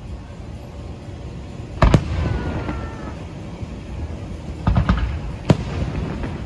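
Aerial fireworks shells bursting overhead: a loud bang about two seconds in, then a quick cluster of bangs near five seconds and one more sharp crack just after.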